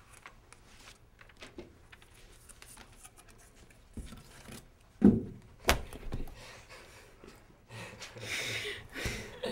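Paper screen sheets on a cardboard kiosk mock-up being handled and swapped, with scattered small clicks and two sharp knocks about five seconds in, then a brief rustle near the end.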